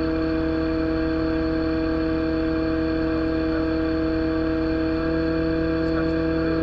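Excavator's diesel engine and hydraulics running steadily while the arm is at rest, heard close up as an unchanging droning hum: several held tones over a low rumble.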